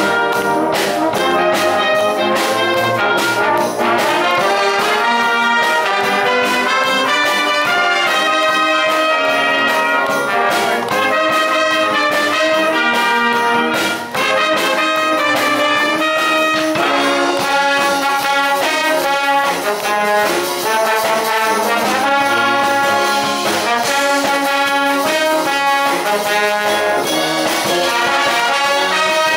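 A wind band playing, with trombones and trumpets to the fore over the full ensemble, loud and continuous, with a brief break in the phrasing about halfway through.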